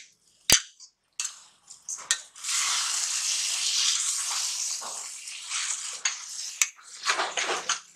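A perforated steel ladle stirring and scraping a thick fried eggplant mash around a stainless steel pan, with the mash sizzling. A sharp metal clink comes about half a second in, and the stirring noise runs steadily from a little after two seconds in, with a few more small clinks near the end.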